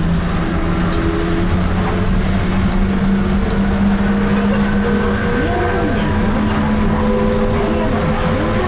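Rubber-tyred trolleybus cruising through a tunnel, heard from inside the cabin: a steady rumble of tyres and running gear, with the steady hum of its VVVF-inverter-driven AC traction motor. A wavering tone rises and falls a few times in the second half.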